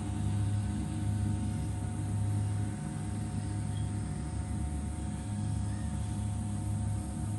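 DJI FPV drone on DalProp Spitfire props in flight, its motors and propellers humming steadily with a low rumble underneath.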